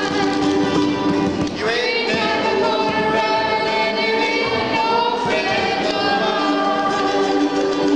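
A ukulele group strumming and singing together as a group, with a sung note sliding upward about one and a half seconds in.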